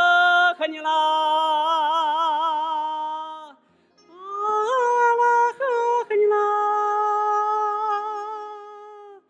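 A male singer holds two long sung notes with vibrato in a Chinese folk-style song. There is a short break about three and a half seconds in, and the second note is the longer one, fading away near the end.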